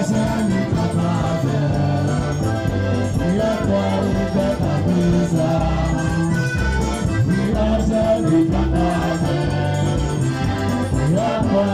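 Live band music with several voices singing together over a heavy, steady bass line.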